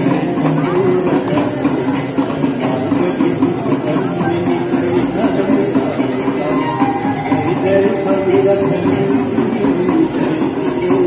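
Aarti bells ringing without pause in a dense metallic clangour, part of the Ganga aarti ritual.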